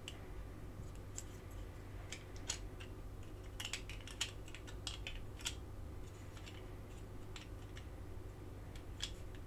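Scattered small clicks and taps of a grey plastic interior piece being pressed into a diecast metal toy van body, over a faint steady low hum.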